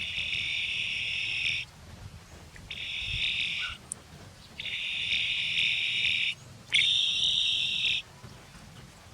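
Four steady, buzzing animal calls, each one to two seconds long, separated by short pauses.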